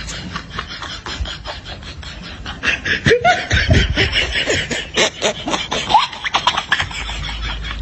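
A person laughing: a run of short, choppy bursts starting about three seconds in and lasting about four seconds, over a steady background with faint clicking.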